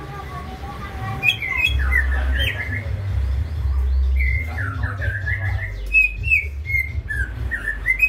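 Male greater green leafbird singing in bursts of quick whistled and chirping phrases, three runs in all, with a low rumble underneath.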